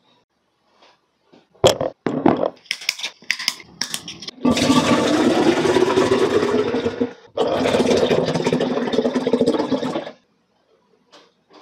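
Plastic drink bottles crackling and clicking as they are opened and handled. Then two 1.5-litre bottles of grapefruit zero drink are poured together into a tall glass: a loud, steady gushing pour that breaks off briefly about seven seconds in and resumes for about three seconds more.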